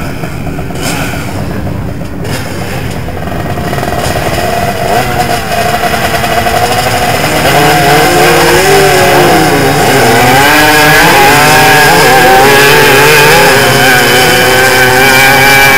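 Engines of two three-wheeler ATVs on a drag strip, revving at the start line and then launching and running at full throttle. The sound gets louder from about halfway, and the engine pitch rises and dips several times as they accelerate.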